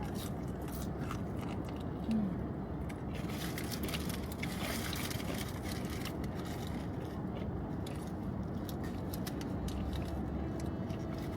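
Crispy fried chicken being bitten and chewed, with many small crunches and crackles over a steady low background hum.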